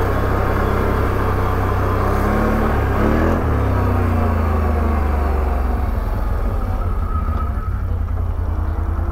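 Side-by-side UTV engine running as the machine slows and rolls into a parking spot, its pitch sliding as it comes off the throttle. In the second half it settles into a pulsing idle.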